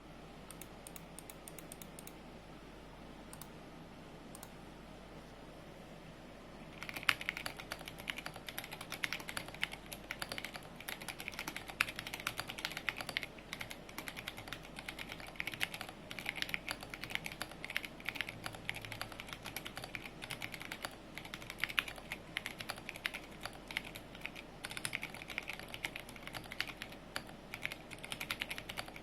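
Typing on a mechanical keyboard with Ergoclear 62g switches and SA-profile keycaps in an acrylic sandwich case with a half plate: a fast, continuous stream of keystroke clacks. It starts about seven seconds in, after a few faint single clicks.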